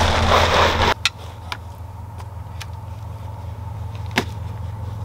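A motor vehicle driving off across a dry field with its engine running hard, cut off abruptly about a second in. Then a quieter steady engine hum, with a few sharp clicks.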